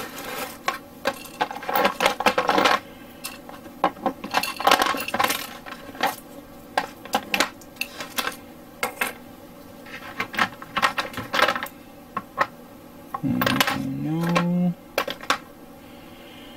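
Small glass jars of hobby paint and other items being moved about on a workbench. Many short, light clinks and knocks come at irregular moments.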